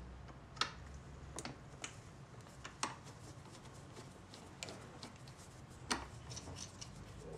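Irregular sharp metallic clicks and ticks of a wrench and steel nuts as the nuts on the motor-mounting bolts of a Victor two-spring phonograph motor are worked loose, over a faint low hum.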